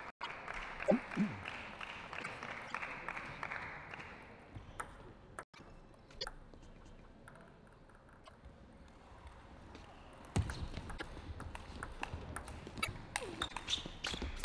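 Table tennis rally: the celluloid ball clicking sharply off the bats and the table in quick succession. Heavier low thuds join the clicks in the last few seconds.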